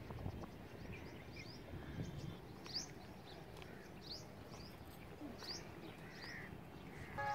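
Small birds chirping: short, high, sweeping calls about once a second, faint over a low background hum.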